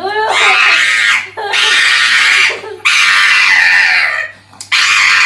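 Four long, harsh, very loud screams, each about a second, separated by short breaks.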